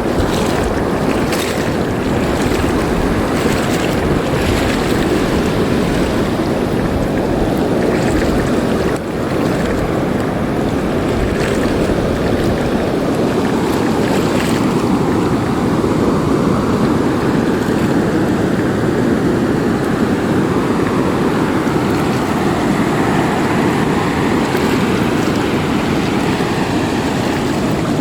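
Wind buffeting the microphone over the wash of waves and current-driven water in shallow surf, a steady loud noise without letup.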